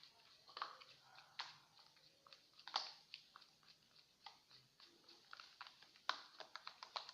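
Glue and water mixture being stirred by hand in a container: faint, irregular small clicks and taps of the stirrer working the wet mixture.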